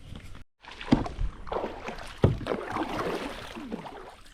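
Knocks against a kayak hull over a steady noisy background, with two sharp knocks about one second and two seconds in.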